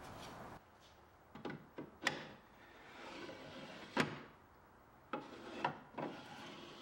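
Small white oak desk drawer being slid and handled: wood rubbing on wood, with about seven sharp wooden knocks, the sharpest about four seconds in.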